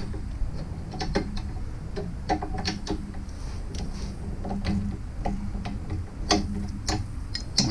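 Socket ratchet on a torque wrench being worked back and forth on a bolt, its pawl clicking in short irregular runs.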